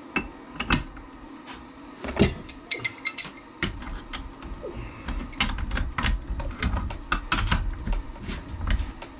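Irregular metal clicks and clanks as a hand tool is fitted and worked on the pinion nut of a Kawasaki Brute Force 650 front differential clamped in a bench vise, the nut's thread-locker just softened with a torch. A low rumble joins the clicks from about three and a half seconds in.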